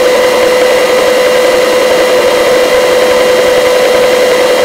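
Helicopter in flight heard through the crew intercom: a steady, loud rushing noise with one unchanging mid-pitched whine running through it.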